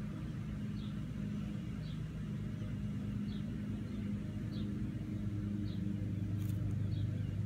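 A steady low mechanical hum, with a short high chirp repeating about once a second and a couple of faint clicks near the end.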